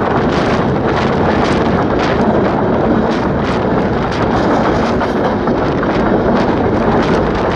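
EMD GR-12 two-stroke diesel locomotive running down the line, heard from its outside walkway: a steady engine and running-gear din with sharp knocks as the wheels go over the rough track, about one or two a second. Heavy wind buffets the microphone throughout.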